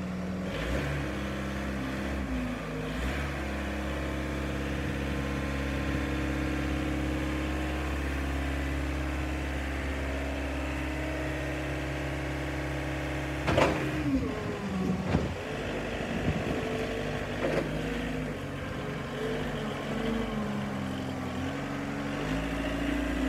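Still RX70-30 Hybrid forklift's diesel engine running at a steady speed with an even tone, then a sharp clunk about halfway through, after which the engine pitch rises and falls as the truck is worked and driven.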